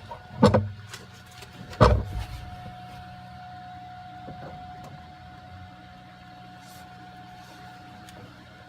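Two knocks about a second and a half apart as the vent pipe of a homemade styrofoam-cooler air conditioner is moved, then its CPU fan running with a steady hum and a faint thin whine.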